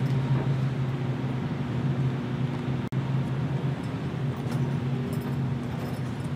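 Steady low mechanical hum with a droning pitch, and a few faint clicks. The sound cuts out for an instant about three seconds in.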